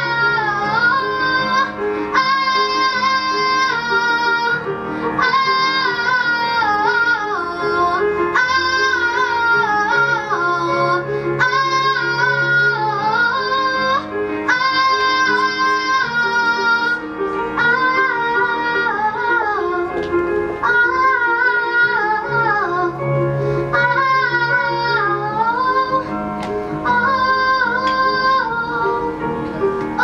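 A young girl singing a pop ballad into a microphone over instrumental accompaniment, in phrases of a couple of seconds each with pitch slides between notes.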